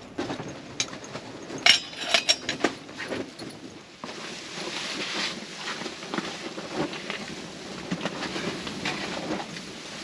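Camp cookware and gear handled on a folding table: several sharp knocks and clicks in the first few seconds. Then a steady rushing noise with irregular glugging pulses as water is poured from a plastic gallon jug into a pot.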